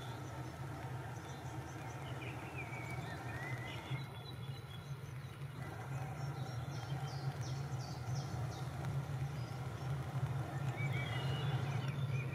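Bayerische Zugspitzbahn electric rack-railway railcar approaching on the rack track, a low steady hum growing louder as it nears. Birds chirp now and then.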